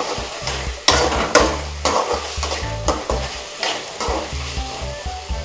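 Diced potatoes sizzling as they fry in oil in a metal kadai, with a spatula stirring and scraping them across the pan in repeated strokes.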